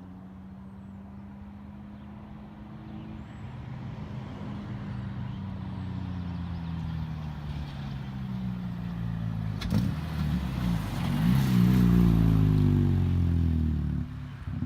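Acura RSX Type S's straight-piped 2.0-litre four-cylinder engine running, its exhaust note growing steadily louder to a peak. There is a sharp click about two-thirds of the way in, and the sound drops away suddenly near the end.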